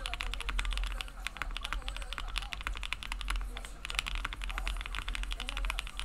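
Fast, continuous typing on a 60% mechanical keyboard with Gateron Creamy Oil linear switches (Oil King housings with cream stems), GMK keycaps and a 1.5 mm PLA half-plate in a 3D-printed Bakeneko60 case: a dense stream of keystrokes with a nutty clack.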